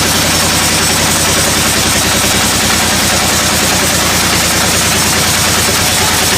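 Sawmill machinery running loudly and steadily: an engine-driven saw with a rapid, even pulsing underneath a dense hiss of cutting.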